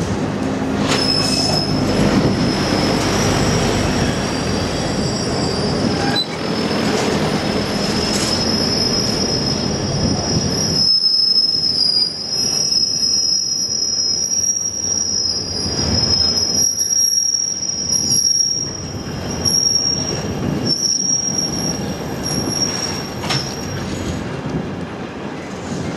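Container flat wagons of a freight train rolling past close by, their wheels squealing in a steady high whine from about a second in until near the end. Underneath runs the rumble and knock of wheels on the track, heavier in the first half and thinner after that.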